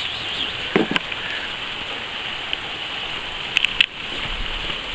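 Steady hiss of falling rain, with a brief faint sound about a second in and a few soft clicks near the end.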